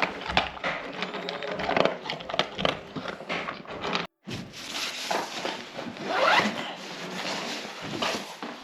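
Rustling and scraping of gear being handled, with a zip pulled once in a rising stroke about six seconds in. The sound cuts out briefly just after four seconds.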